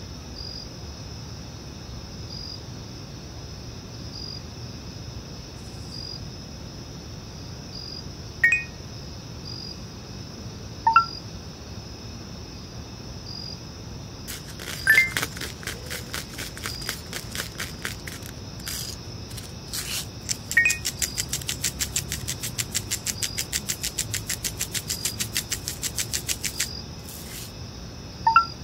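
A measuring spoon clinking sharply against a ceramic bowl a few times as spices are added. Two long runs of rapid, even grinding clicks, about five a second, come from a salt or pepper mill being twisted over the bowl. A faint steady hiss lies underneath.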